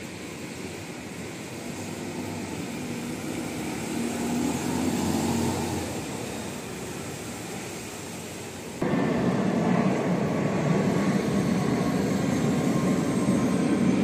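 City bus engines running. A bus's engine hum swells to a peak about five seconds in and then fades. About nine seconds in the sound jumps abruptly to a louder, steady rumble from a bus close by.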